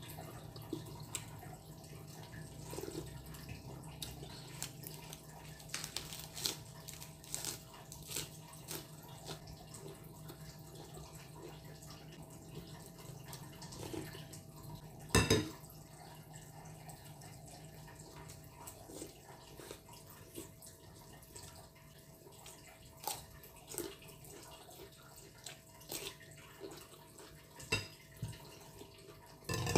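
Close-up eating sounds: a metal spoon clinking and scraping against a glass bowl and broth being sipped off the spoon, in short scattered clicks and slurps, the loudest about halfway through. A faint steady hum lies underneath.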